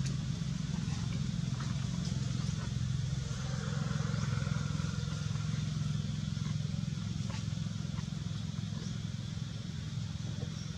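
A steady low engine hum, with a few faint ticks over it.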